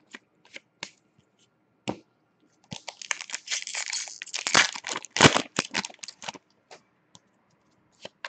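Foil wrapper of an Upper Deck hockey card pack being torn open and crinkled by hand: a dense crackling in the middle few seconds, loudest at about five seconds. It is framed by a few light clicks of cards being handled.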